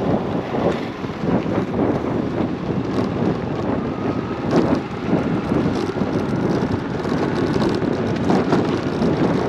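Wind buffeting the microphone while riding a moped: a rough rushing noise that surges and dips unevenly throughout.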